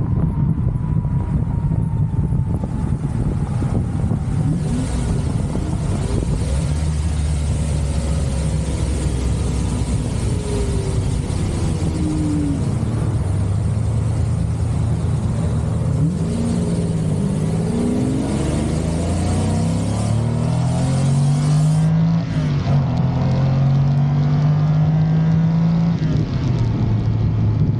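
Lamborghini Countach V12 engine running at steady revs, then accelerating hard through several gear changes in the second half, the pitch climbing and dropping back with each upshift.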